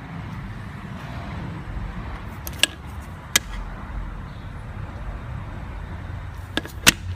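GM 6.0-litre V8 running steadily with a low rumble, misfiring (code P0300), which the owner puts down to a stuck lifter. A few sharp clicks come through, two near the middle and two close together near the end.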